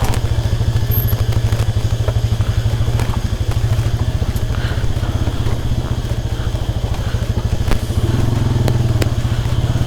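Motorcycle engine running at low revs on a rocky off-road downhill trail, with a fast, even beat. A few sharp clicks and knocks come through, and the engine note firms up slightly near the end.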